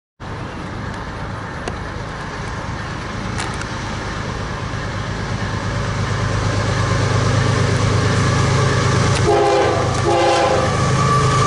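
CSX GE ES44AC-H diesel locomotive approaching at the head of an empty coal train, its engine drone growing steadily louder. A little over nine seconds in it gives two short blasts of its multi-note horn.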